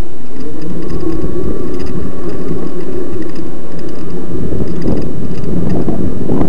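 Electric mountain bike riding a rough dirt trail under part motor power, with loud wind buffeting the microphone over the rumble and rattle of the ride and a faint steady motor whine.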